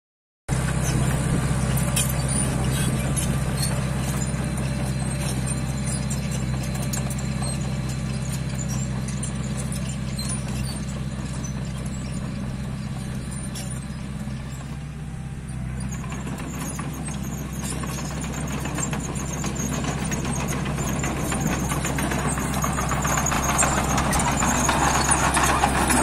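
Komatsu D20P crawler dozer's diesel engine running steadily as the machine works, with clanking and squeaking from its steel tracks. It grows louder toward the end as the dozer comes close.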